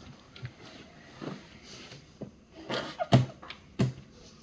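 Soft knocks, clicks and rustles as children shift about, climbing into a plastic ride-on toy car, with a short breath or sniff about two and a half seconds in.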